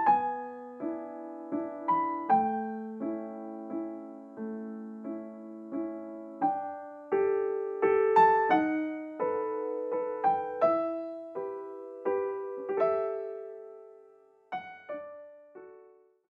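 Gentle solo piano music: a slow melody of struck notes and chords, each ringing and dying away, thinning to a few last notes near the end.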